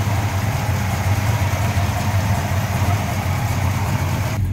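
Plymouth GTX's 440 cubic-inch V8 idling steadily, heard close up with the hood open, still warming up from an almost cold start.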